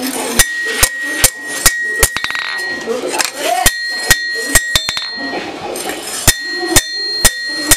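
Hand hammer striking a steel bar on an anvil, about two blows a second in short runs with brief pauses between them. Each blow gives a sharp metallic clink that rings on briefly.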